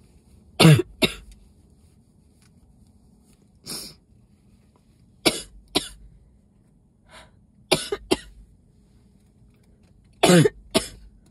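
A person coughing hard in four bouts of two sharp coughs each, a couple of seconds apart, with a couple of fainter coughs between. The coughing is driven by a throat tickle bad enough to choke her, during an illness that has left her voice hoarse.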